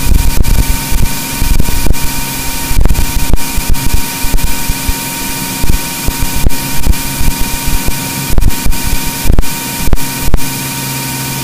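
Cirrus SR22's six-cylinder piston engine and propeller at full takeoff power during the takeoff roll, heard from inside the cockpit as a loud steady drone with a high whine, broken by frequent crackles and thumps.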